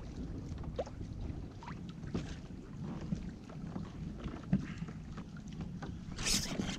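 Wind rumbling on the microphone over light water sounds around a small boat, with scattered faint ticks and a brief hiss about six seconds in.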